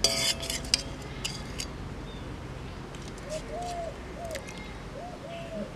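A metal spoon clinks and scrapes against an aluminium cooking pan several times in the first second and a half. From about halfway through, a bird coos in the background in short, repeated phrases.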